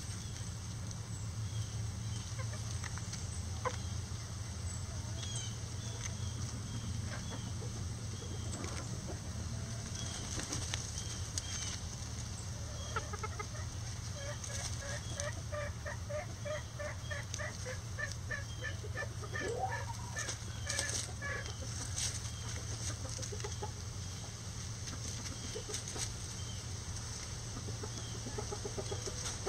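Lavender Old English Game bantam chickens clucking as they feed, with a long run of quick, evenly spaced clucks through the middle and a short rising-and-falling call near its end. A steady low hum lies underneath.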